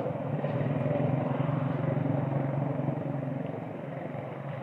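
An engine running steadily with a low hum, easing off a little in the last second or so.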